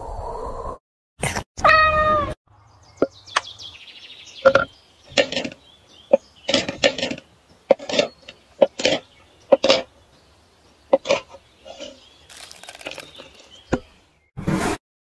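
A cat meows once, about two seconds in. Then a knife chops through chocolate bark on a wooden cutting board: a string of about a dozen short, sharp cracks and knocks.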